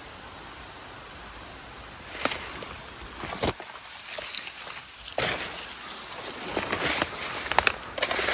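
Steady hiss for about two seconds, then footsteps rustling and crunching through dry leaf litter and brush, with several sharp snaps of twigs or dead bamboo.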